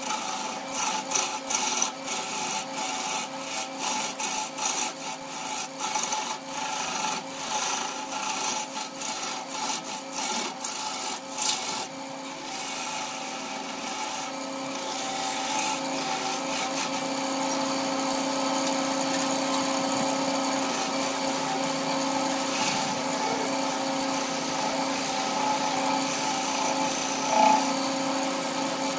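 Wood lathe turning a yellow wood blank while a hand-held gouge cuts it, shavings tearing off. For the first dozen seconds the cut comes in quick strokes, about two a second, then it settles into a steadier continuous cut over a low steady hum, with one short louder sound near the end.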